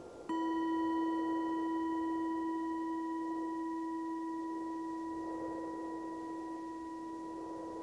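Singing bowl struck once about a third of a second in, then ringing on in a long, slowly fading low tone with higher overtones. Soft wind noise lies underneath.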